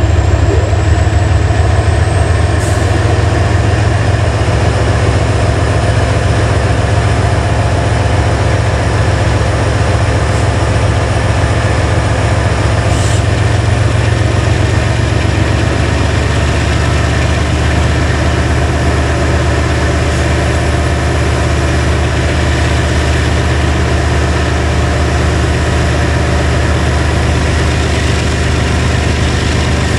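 Diesel engines of a BNSF oil train's lead locomotives running with a steady deep drone as the stopped train starts up. A faint high whine rises slowly over the first several seconds, and the train begins to creep forward in the second half.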